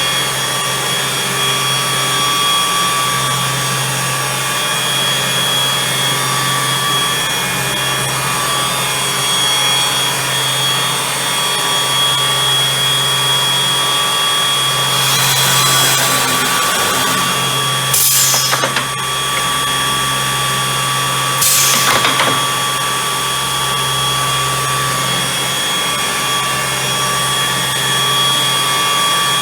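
Bacci FC8CNC eight-head CNC contour shaping machine running, a steady hum with high whining tones from its spindles and drives. About halfway through the sound turns noisier, then come two short, loud bursts a few seconds apart.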